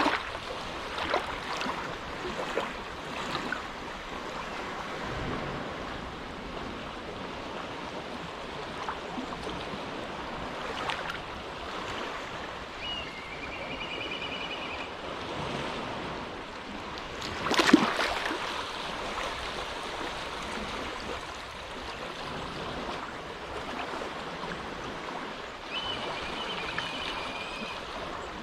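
Small, calm waves lapping and splashing at the water's edge of an inlet, with one louder splash about two-thirds of the way through. Twice a short, high, wavering trill is heard.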